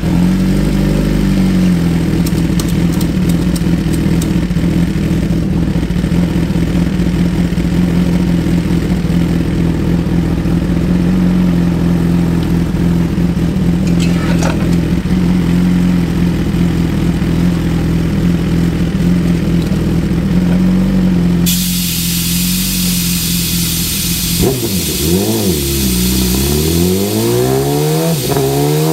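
2017 Suzuki GSX-R1000's inline-four engine, breathing through a Brock's Performance Alien Head 2 exhaust, idling steadily just after start-up. About two-thirds of the way through a steady hiss comes in, and near the end the engine is revved in several rising and falling blips.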